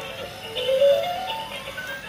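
Battery-operated toy playing its built-in electronic tune: a simple beeping melody of single notes stepping up and down.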